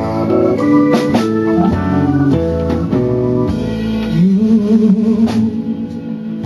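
Background music: a soul-blues song in an instrumental stretch between sung lines, with organ and drums.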